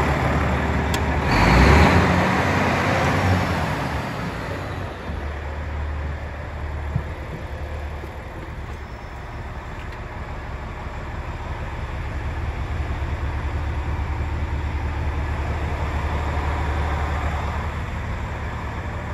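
Volvo D13C diesel truck engine idling steadily, heard from inside the cab. About one to two seconds in there is a loud burst of rustling and knocking from movement in the cab.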